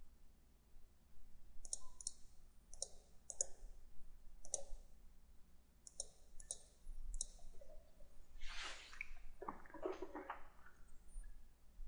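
Computer mouse buttons clicking, about eight separate clicks, some in quick pairs. About eight seconds in comes a brief rustling, scraping noise.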